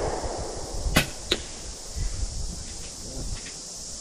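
The echo of a rifle shot dying away across the range, then two sharp clicks about a second in, close together.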